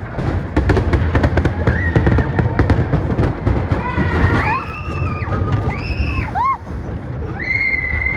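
Roller coaster bobsled rumbling and clattering along its steel track, with rapid sharp clacks in the first few seconds. Several long high screams from riders come in the second half.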